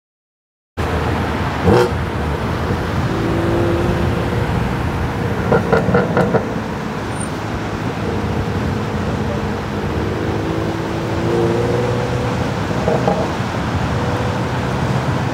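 BMW M4 Competition's twin-turbo straight-six, running upgraded turbos and a catless downpipe, driving past at speed with steady engine and road noise. The sound starts suddenly just under a second in; there is a sharp pop about two seconds in and quick runs of crackles around six and thirteen seconds, typical of exhaust pops from an aggressive tune.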